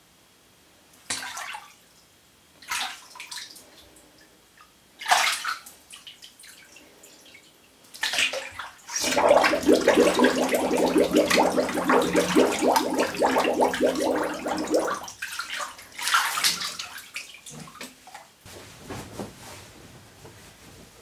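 Bath water sloshing in small splashes as a body moves in the tub, then about nine seconds in a loud run of bubbling and gurgling lasting about six seconds as air is breathed out with the head underwater, ending in a splash as the head comes up.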